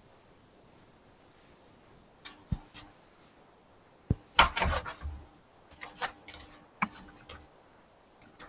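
Handling noise as a drawing board is lowered and put away: irregular clusters of knocks, taps and rubbing. The loudest cluster comes about four seconds in.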